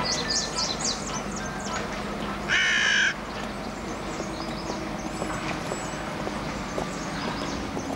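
Small birds chirping in quick short notes, and a single loud crow caw about two and a half seconds in.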